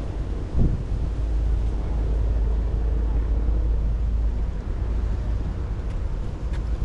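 Wind buffeting the microphone: a steady, deep rumble with a brief gust about half a second in.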